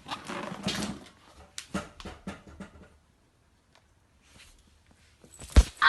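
Kitten making a breathy, whiny cry of displeasure in the first second, followed by a few light clicks and a sharp thump near the end.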